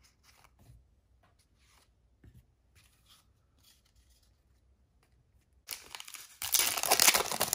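Faint taps of trading cards being laid down on a mat, then, near the end, a Fortnite Series 2 trading card pack's wrapper being torn open with loud crinkling and tearing for about two seconds.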